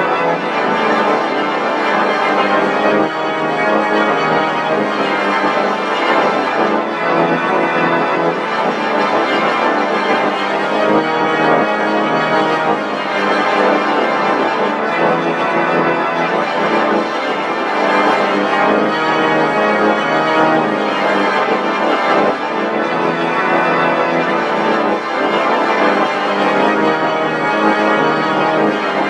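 Continuous, heavily processed electronic sound effect: a dense organ-like drone of many sustained tones at a steady loudness.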